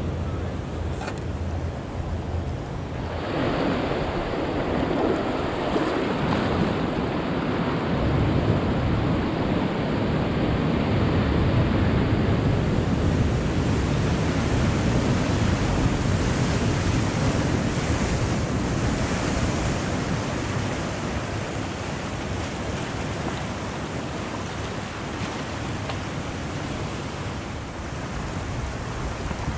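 Ocean surf breaking and washing over a rocky reef, growing louder about three seconds in, with wind on the microphone.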